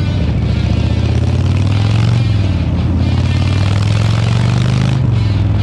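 Harley-Davidson Fat Boy's V-twin engine rumbling steadily through a Jekill & Hyde aftermarket exhaust, its engine speed dipping slightly about two and a half and five seconds in.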